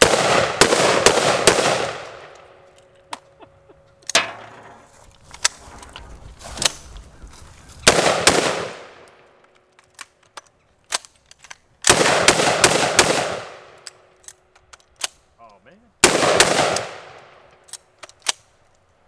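Gunfire from two short-barrelled AR pistols, one in .308 and one in 5.56: quick strings of three or four semi-automatic shots, a few seconds apart, each string trailing off in a long echo, with single shots in between.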